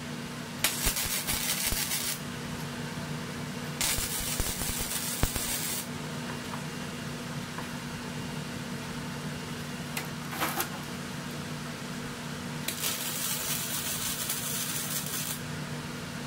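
Welding arc crackling in three bursts of about two seconds each and one brief one, as beads are laid on a cast exhaust manifold. A steady low hum runs underneath.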